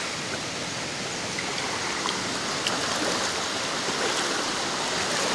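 Rushing river running high after rain, its water flowing fast over rocks in a steady, even rush.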